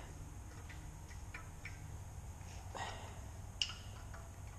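Faint, scattered light clicks and clinks of steel hand tools and fittings being handled on a cast-iron engine block, over a low steady hum, with a sharper clink at the very end.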